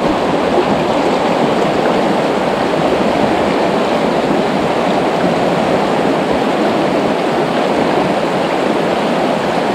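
Shallow river rushing and splashing over rocks in small rapids, a steady, loud rush of water close by.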